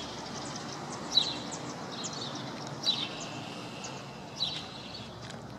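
Small birds chirping in about four short runs of quick high notes over steady low street ambience.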